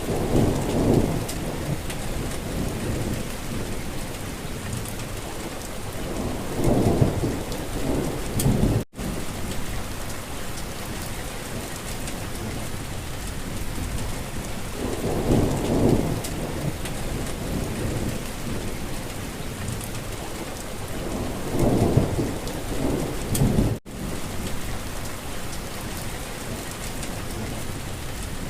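Steady rain pattering on a surface, with deep rumbles swelling up about every six to eight seconds. The sound cuts out for an instant twice, like the seam of a looped recording.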